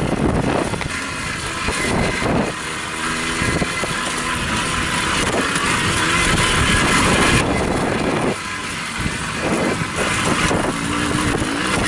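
Jawa Babetta moped's 50 cc two-stroke single-cylinder engine running as the moped rides over a rough dirt track, with wind rushing over the microphone. The engine note shifts with the throttle and dips briefly about eight seconds in.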